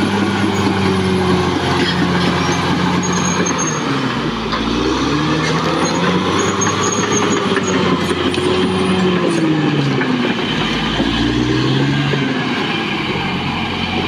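Caterpillar D6R XL bulldozer's diesel engine working steadily, its pitch sagging and recovering several times as it takes load, with a faint high whine at times.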